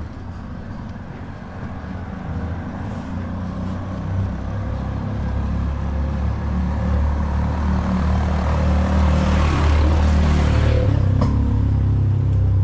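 A motor vehicle's engine running close by with a low hum, growing steadily louder as it approaches. A loud rush of noise comes about ten seconds in.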